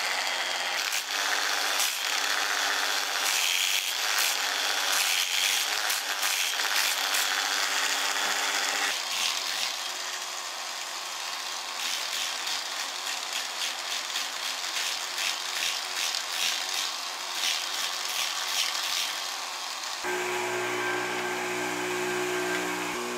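Hand-held angle grinder with a sanding disc running against the wooden bowl of a ladle: a motor whine under scratchy abrasive rubbing as the wood is sanded. About twenty seconds in it gives way abruptly to a steady low hum.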